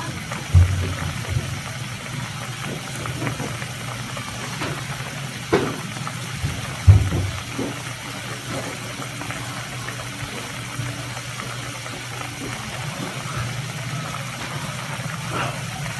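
Clam adobo sauce simmering in a wok: bubbling with a few sharp pops, the loudest about seven seconds in, over a steady low hum.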